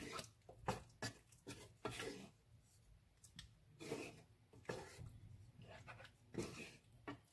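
Wooden spoon stirring chicken in curry sauce in a nonstick pan, scraping the pan in faint, irregular strokes.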